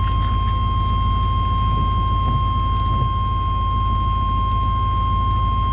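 Steady low vehicle rumble with a constant high-pitched whine held over it throughout.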